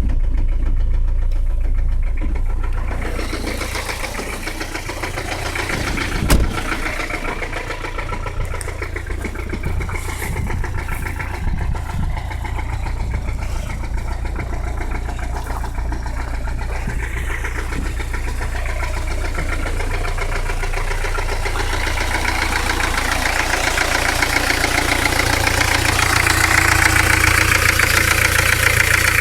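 A 1985 Peugeot 505's XD3 four-cylinder diesel engine running with rod knock, the sign of a failed connecting-rod bearing. One sharp, loud knock stands out about six seconds in, and the engine gets gradually louder over the last third.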